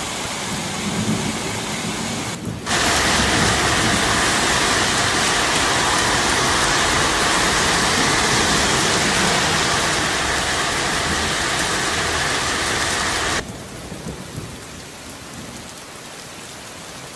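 Heavy rain pouring, a steady hiss that jumps much louder about two and a half seconds in and falls back to a softer rain sound near the end.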